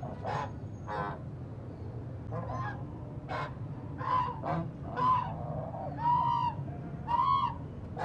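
Black swans giving a series of short honking calls, about one a second, some bending slightly in pitch.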